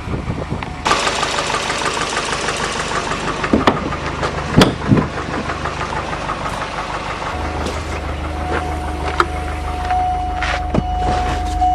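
Volvo turbo car's engine idling steadily, with a hiss joining about a second in, a few sharp clicks and knocks between about three and a half and five seconds in, and a steady whine near the end.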